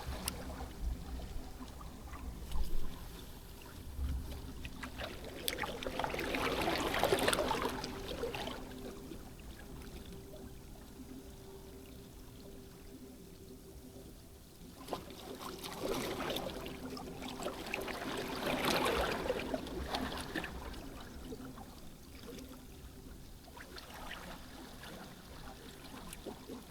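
Sea waves washing up on the shore, the surge swelling and fading away twice.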